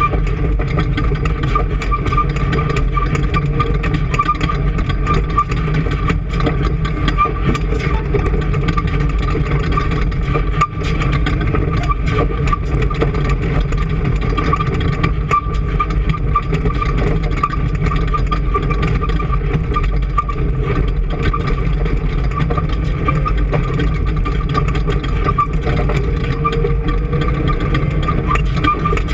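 An engine running steadily at an even speed, with a constant high whine over its low rumble.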